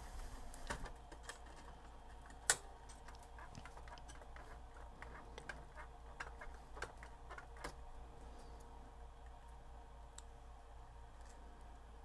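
Faint, scattered small clicks and scrapes, with one sharper click about two and a half seconds in, over a low steady hum: hands working small incandescent display lamps loose from a stereo receiver.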